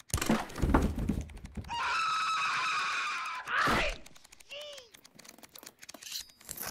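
Flipbook pages riffling under a thumb as a rapid patter of paper clicks, overlaid with slapstick sound effects: a long high-pitched sustained sound about two seconds in, then short yelling cries.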